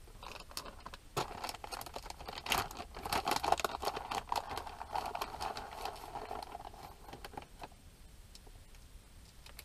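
Hands working a spoon and cups on a tray: a run of irregular clicks, taps and scrapes, busiest in the middle and dying away about three-quarters of the way through.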